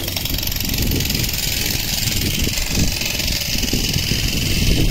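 Construction machinery running steadily at a building site, a loud hissing, rapidly rattling noise over a low rumble.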